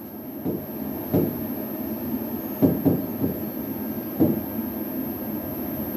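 Stylus writing on an interactive whiteboard's screen: a few short knocks as the pen tip strikes the surface, three in quick succession near the middle, over a steady low rubbing noise.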